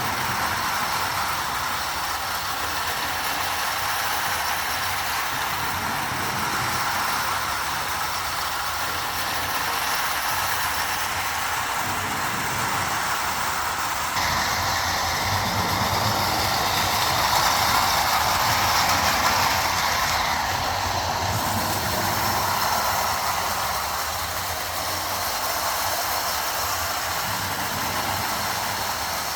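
Marx Commodore Vanderbilt tin-plate O-scale electric toy train running on its track: a steady whir and clatter of the motor, wheels and tin cars on the metal rails. It grows louder about halfway through, then eases back.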